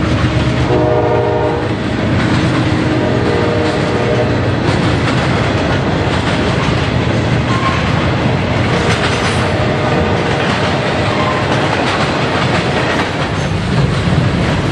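Norfolk Southern freight cars rolling past at track side, wheels clacking and rumbling steadily over the rails. The locomotive's horn, well up the line, sounds in two or three blasts during the first few seconds, then only the rolling cars are left.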